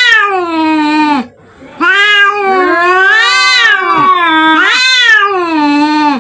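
Domestic cats caterwauling in a fight standoff: an aggressive wail about a second long, then after a short gap a drawn-out yowl of about four seconds that rises and falls in pitch, with two voices overlapping in the middle.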